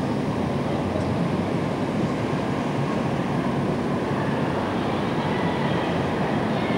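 Steady city street noise: an even rumble of passing traffic with no single event standing out.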